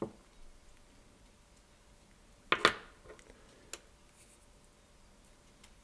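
Small tools being handled at a fly-tying bench: two sharp clicks close together about two and a half seconds in, a fainter tick a second later, and a short click at the start.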